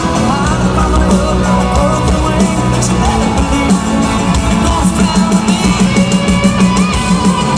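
Country-rock band music: drum kit and guitar playing a steady beat.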